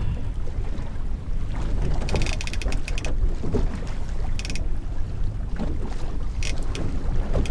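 Fishing reel's drag clicking in three short rapid bursts, the first about a second long, as a big hooked fish pulls line against it, over a steady low rumble of wind and water.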